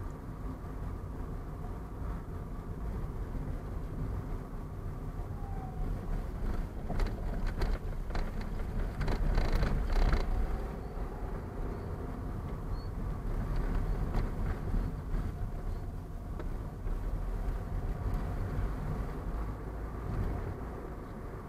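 Car running and tyre rumble heard from inside the cabin. From about seven to ten seconds in, a cluster of thumps and rattles rises to the loudest point as the car rolls over the level-crossing rails.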